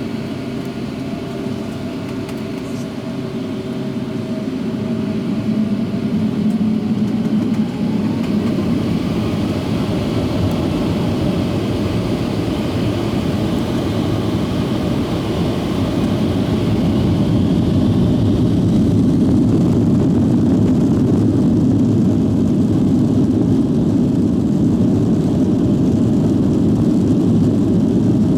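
Boeing 757-300's jet engines spooling up, heard inside the cabin: a whine climbs steadily in pitch over ten seconds or so while the rush grows louder, then holds at a steady loud level, as at the start of the takeoff roll.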